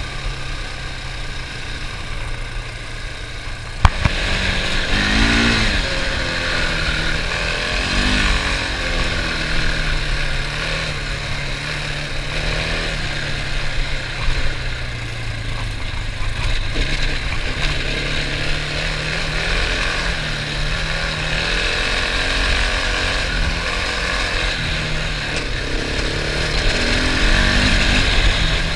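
Husqvarna 701 Enduro's single-cylinder four-stroke engine heard from onboard while riding a dirt track, with wind rushing over the microphone. It runs quieter at first; after a sharp click about four seconds in it is louder, and the revs climb several times as the rider accelerates.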